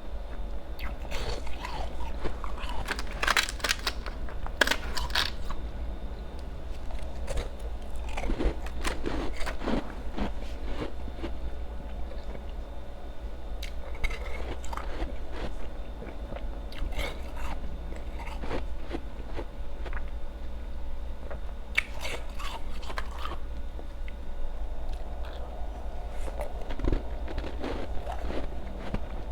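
Close-up crunching of ice being bitten and chewed, in bursts of sharp crunches every few seconds with quieter chewing between. A steady low hum lies underneath.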